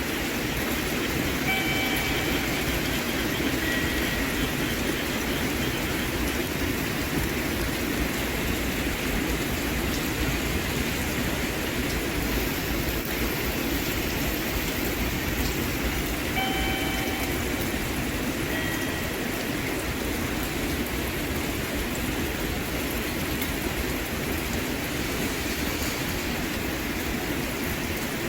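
Steady rumble and rush of a train running, with faint short high tones twice, about 2 seconds in and again about 17 seconds in.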